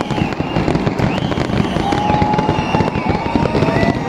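Fireworks display: a dense, continuous barrage of bangs and crackles, with several whistling tones held for about a second each above it.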